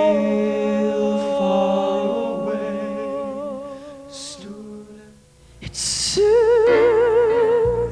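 Gospel vocal group singing a held chord in close harmony, the voices fading out about five seconds in; after a breath, a voice with strong vibrato starts the next phrase over a low sustained bass note.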